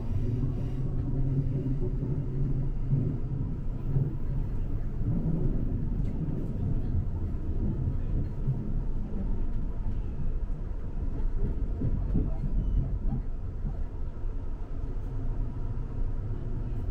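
Low, steady rumble of a Queensland Rail electric suburban train, heard from inside the carriage.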